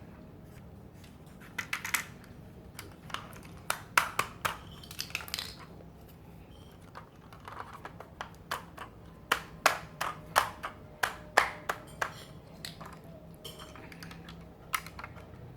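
Plastic Lego pieces clicking and clattering as the assembled model is handled and turned, in irregular sharp clicks that bunch together in two busy stretches.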